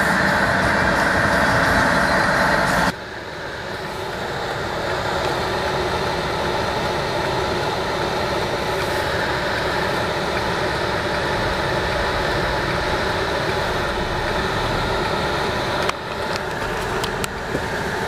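Steady vehicle engine rumble and hiss heard from inside a car's cabin. It drops abruptly about three seconds in, then runs on lower, with a few clicks and knocks near the end.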